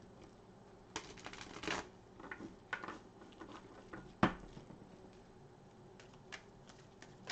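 Tarot cards being handled on a table: a few short papery rustles and light clicks, with one sharp tap about four seconds in.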